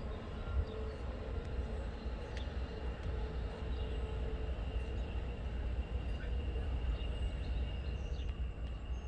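Low, steady rumble of a distant Norfolk Southern freight train's diesel locomotives approaching. A faint, steady high tone comes in about four seconds in.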